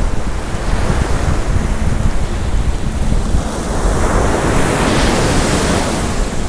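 Wind buffeting the microphone over the wash of ocean surf breaking on the beach, a wave's hiss swelling louder about four seconds in.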